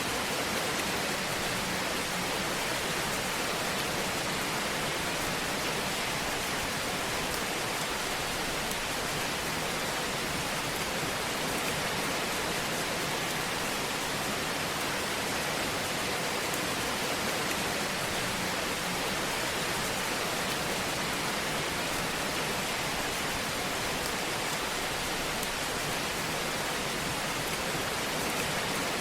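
Wood fire burning in a fireplace: a steady hiss with fine, light crackling throughout.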